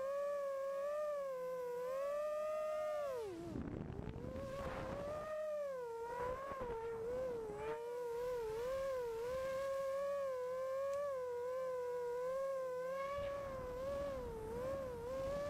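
FPV racing quadcopter's motors whining, the pitch wavering up and down with the throttle; about three and a half seconds in the pitch falls away sharply as the throttle is cut, then climbs back with a rush of air noise.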